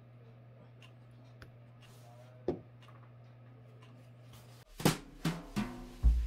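Faint taps and one sharp knock over a low steady hum. Near the end, background music begins with four drum hits.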